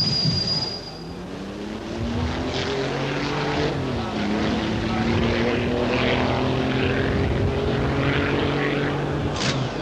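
A high steady whine stops about a second in. A piston engine then runs and builds, its pitch dropping about four seconds in as it passes by, then holds a steady note.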